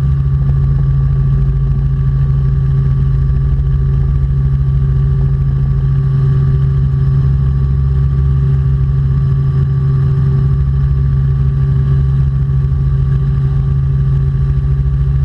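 Robinson R44 Clipper II helicopter in flight: its engine and rotors make a loud, steady drone with an even low hum that does not change.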